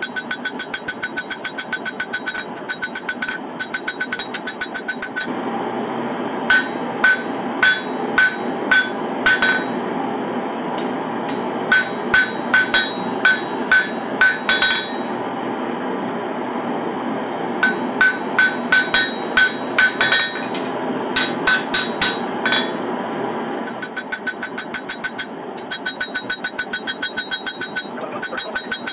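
Hand forging hammer striking a red-hot katana blade on a steel anvil while beveling the edge: runs of ringing blows, about two to three a second, with short pauses between runs, and lighter, quicker taps near the start and end. A steady rushing noise runs underneath, louder through the middle.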